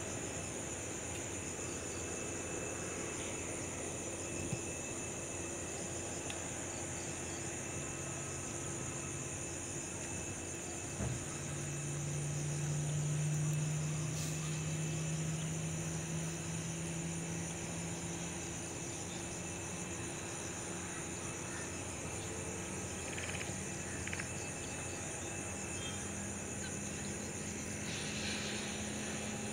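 Distant Airbus A320 taxiing at low power: a low hum from its jet engines that swells about a third of the way in and creeps slightly higher in pitch toward the end. A steady high-pitched insect chirr runs under it.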